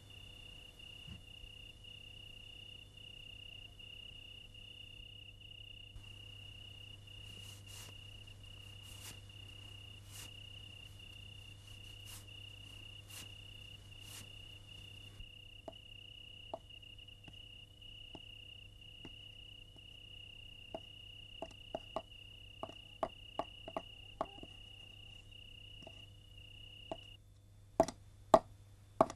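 A cricket chirping in a steady, fast-pulsing high trill that stops near the end. Soft scattered clicks join it about halfway through. Just before the end come a few loud, sharp knocks of a hand tool cutting into a wooden log.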